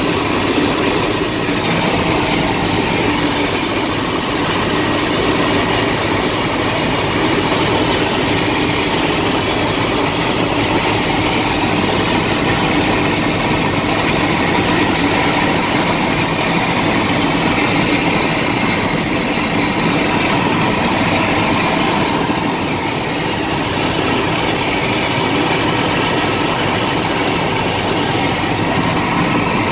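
Bell 206 helicopter's turbine engine and rotor heard from inside the cabin in flight: a steady, unbroken drone.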